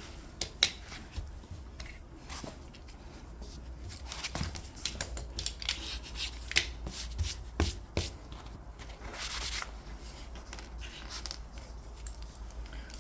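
Hand work on a laminated wood floor repair: scattered clicks and taps with a stretch of rubbing or scraping, over a low steady hum.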